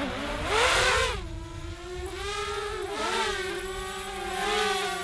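DJI Spark quadcopter's propellers and motors whining as it flies close past, loud with a rush of air about a second in, then the pitch drops and settles into a steadier buzz with small wavers as it slows and hovers.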